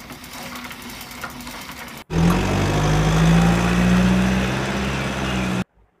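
A van's engine sound effect starts suddenly about two seconds in. It runs steadily with a deep hum for about three and a half seconds, then cuts off abruptly. Before it there is a quieter, noisy whirring with faint ticks.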